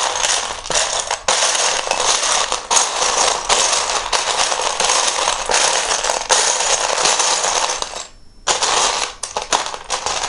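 Loose plastic Lego bricks clattering as hands rummage through a pile of them, searching for a missing piece; the rattling is dense and continuous, stops briefly about eight seconds in, then resumes.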